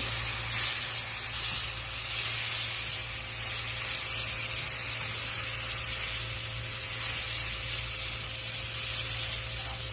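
Marinated chicken pieces frying in hot oil in a pan, a steady sizzle, with a steady low hum underneath.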